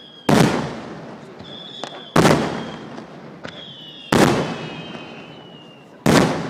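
Aerial fireworks exploding: four loud booms, one about every two seconds, each dying away in a long echo. Thin whistles that fall slightly in pitch and small crackles sound between the bangs.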